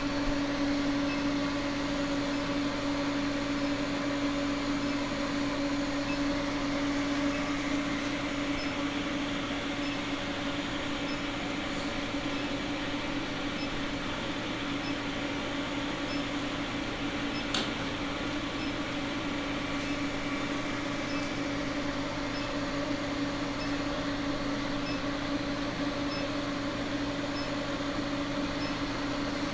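Steady machine hum in a blacksmith's shop: one constant low tone under an even hiss, with a single brief tick partway through.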